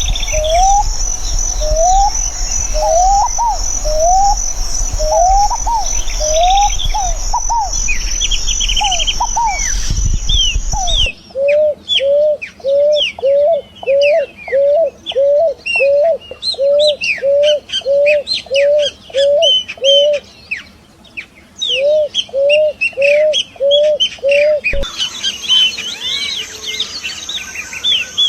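Several birds singing: a repeated low, rising whistled note (about one a second, then about two a second) over many quick high chirps. A steady high-pitched hum runs under the first part and returns near the end, and the recording changes abruptly about eleven seconds in and again near the end.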